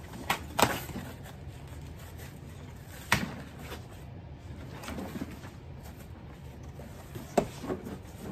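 Cardboard shipping box being handled as a boxed set is worked out of it: flaps rustling and scraping, with a few sharp knocks, two near the start, one about three seconds in and one near the end.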